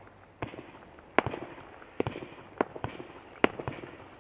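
A low-noise 100-shot firework barrage cake (Absolute Fireworks Neon Nites) firing: a string of sharp pops, a loud one every second or less, with smaller pops between.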